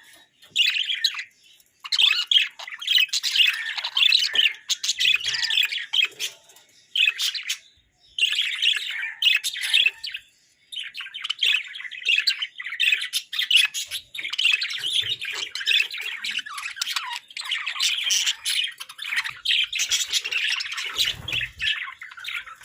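Hagoromo budgerigars chattering and warbling, mixed with harsh squawks. The song comes in runs of a few seconds with short pauses, then runs on almost without a break from about halfway through.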